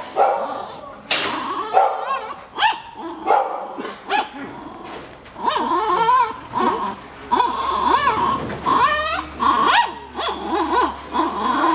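A dog barking in short, separate barks, then a long run of high whining and yelping calls that rise and fall in pitch from about halfway through.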